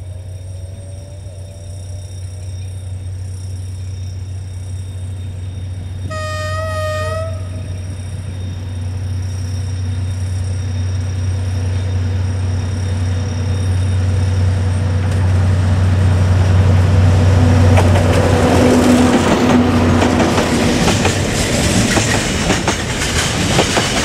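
D19E diesel-electric locomotive approaching with a steady low engine drone, giving one short horn blast about six seconds in. The drone grows louder as it nears. In the second half the rumble of the passing freight wagons takes over, their wheels clicking over the rails.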